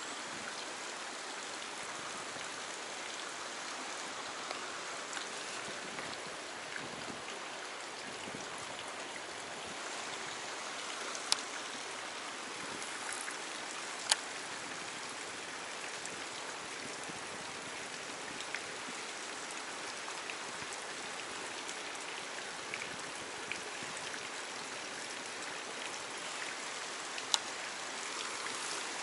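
Steady hiss of water, with a few short sharp clicks about eleven, fourteen and twenty-seven seconds in.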